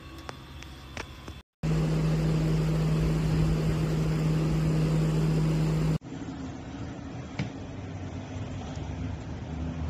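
An electric fan running close to the microphone: a steady hum over a rushing noise for about four seconds. It is preceded by a few light handling clicks and followed by quieter steady room noise.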